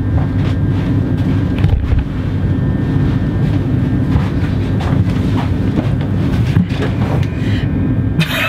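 Steady low rumble inside a passenger train carriage, with a faint high whine over it for the first two seconds.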